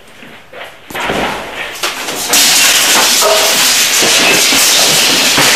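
A few knocks and some clatter, then from about two seconds in a loud, steady hiss-like noise that keeps going.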